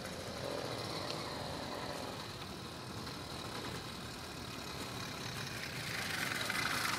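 The small 80cc engine of a motorized bicycle running as the bike rides toward the listener, growing louder near the end as it comes close.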